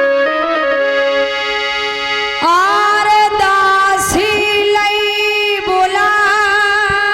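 Instrumental intro music: held keyboard notes in a reedy, accordion-like tone, becoming louder and fuller about two and a half seconds in, with a wavering vibrato on the high notes near the end.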